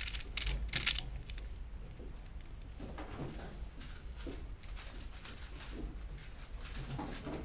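Plastic 3x3 speedcube being turned by hand, its layers clicking and clacking in quick runs of turns, loudest and densest in the first second, then softer and more scattered.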